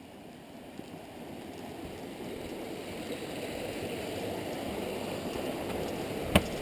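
A small forest stream rushing over rocks, a steady watery hiss that fades in and grows louder. Near the end there is one sharp knock.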